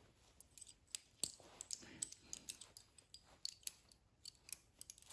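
Metal key blanks being handled and set down, giving a string of light, irregular clicks and small clinks.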